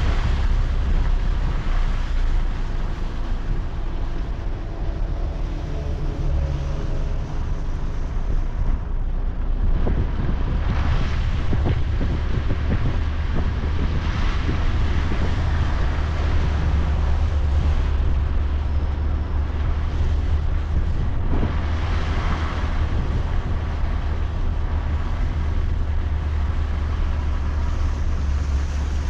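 A car running with a steady low rumble, with wind noise over it that swells twice, around the middle and about two-thirds of the way through.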